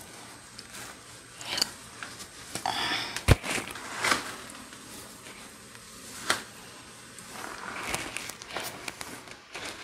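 Yaki-texture lace front wig being pulled on over a wig cap and adjusted by hand: rustling of the hair and lace, with scattered sharp clicks and brushing noises, the loudest about three seconds in.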